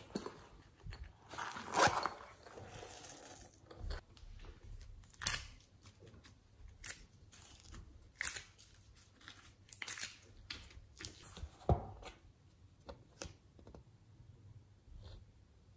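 Hands handling a thin, clear plastic mould tray of heart shapes: a crinkling rustle about two seconds in, then scattered sharp clicks and taps as the plastic is pressed and set down.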